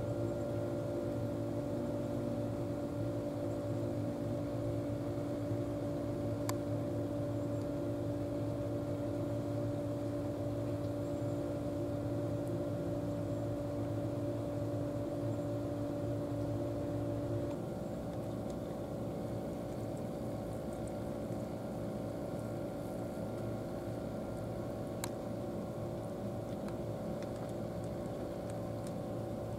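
Steady mechanical drone of a running motor, made of several held tones. A little over halfway through it drops slightly quieter and its tones change.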